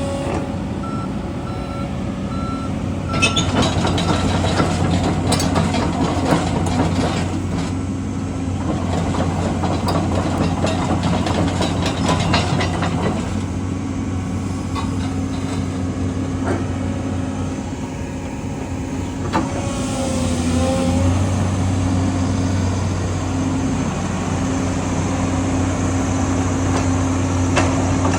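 Komatsu PC228 tracked excavator running, with its engine coming up under load about three seconds in. A warning alarm gives a quick series of short beeps in the first few seconds, and scattered clanks and knocks come from the machine working.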